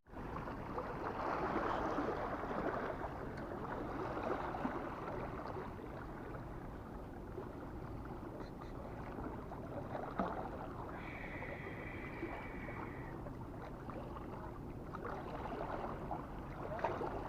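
Sea waves washing over shallow rocks, a steady watery rush, with a brief high steady tone lasting about two seconds a little past the middle.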